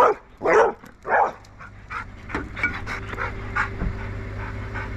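A dog barking three times in quick succession, then scattered quieter small sounds over a steady low hum.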